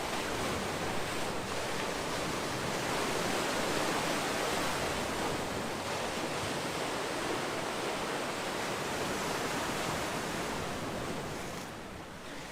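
Sea waves breaking and washing ashore in a steady, even surf, swelling and easing off slowly, dipping briefly near the end.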